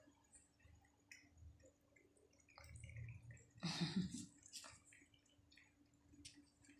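A cat eating a treat off a tile floor: faint wet licking and chewing clicks, with a brief louder noise about three and a half seconds in.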